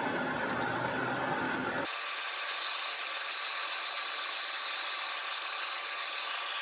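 Manual metal lathe, its three-phase motor run from a VFD, turning an aluminium bar under a deep cut: a steady machining noise with faint steady high tones, the machine running without bogging. About two seconds in, the low rumble drops away abruptly.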